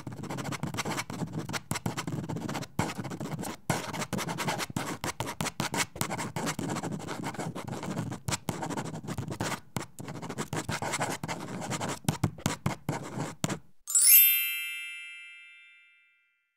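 Felt-tip marker scratching across paper in quick, uneven strokes with brief pauses as words are written out. Near the end the writing stops and a single bright ding rings out and fades away.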